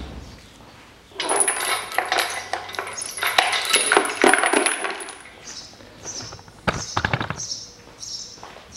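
A steel chain rattling and clinking against the metal of an engine as it is handled, for about four seconds, then a couple of sharp knocks. After that, a bird chirps repeatedly, about twice a second.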